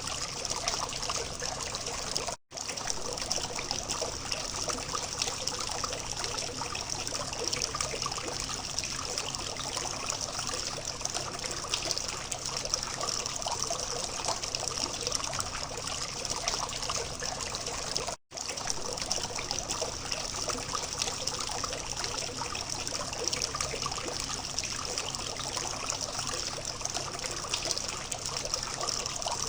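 Small water fountain trickling and splashing steadily. The sound cuts out for an instant twice, about two and a half seconds in and again near the middle.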